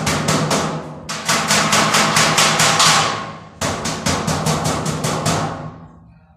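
Background music with a fast, even drum beat over a steady low tone, breaking off briefly twice and fading out near the end.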